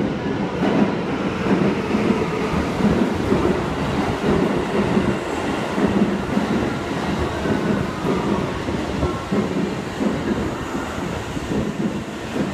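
Subway commuter train rolling into an underground station along the far track: a steady rumble of wheels on rail with some clickety-clack, carried by the enclosed platform.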